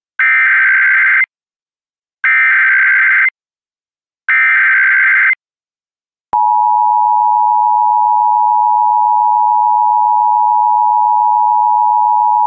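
Emergency Alert System tones announcing a Child Abduction Emergency (AMBER Alert). First come three one-second bursts of the SAME digital header, a harsh warbling buzz, each a second apart. About six seconds in, the steady two-tone EAS attention signal starts and holds.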